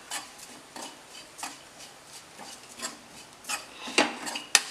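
A spoon scraping and stirring onions and spice powders around a metal kadai in irregular strokes, the loudest near the end, as the powders roast in the pan.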